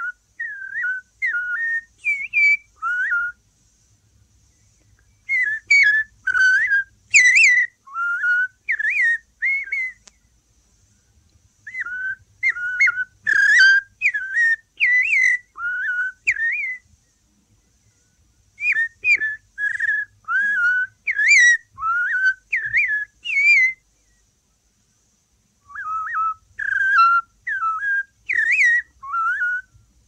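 A man whistling an imitation of a South American thrush's song: five phrases of swooping, fluty notes, about two a second, with short pauses between the phrases. It comes through an off-air cassette recording of a radio broadcast, with a faint hum in the gaps.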